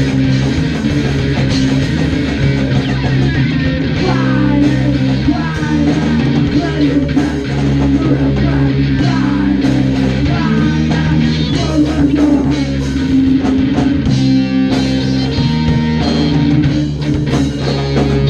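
Ska-punk and hardcore band playing live with electric bass, electric guitar and a Pearl drum kit, loud and continuous.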